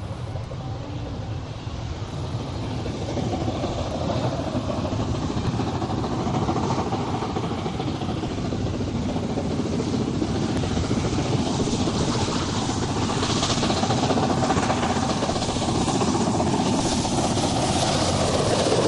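Three-cylinder steam locomotive Duke of Gloucester working a train, a steady rush of running and exhaust noise that grows louder as it draws nearer.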